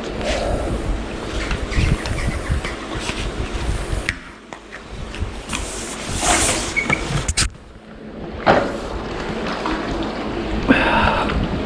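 River water sloshing and splashing around a person wading at about waist depth, mixed with short knocks and scrapes as a magnet pole is worked into the mud.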